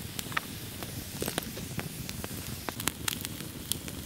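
Wood campfire crackling, with irregular sharp pops over a steady hiss.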